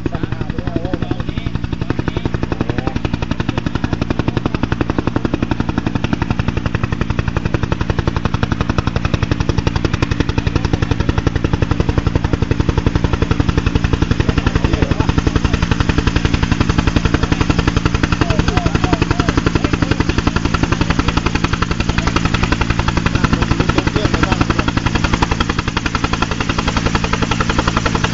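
Helicopter approaching to land, its main rotor beating out a fast, even chop over the engine's steady whine, a little louder in the middle.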